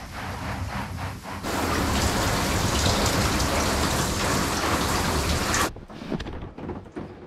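Garden hose spray nozzle jetting water inside an empty plastic IBC tote, the spray hitting its walls. The spray starts about a second and a half in and cuts off suddenly about a second and a half before the end.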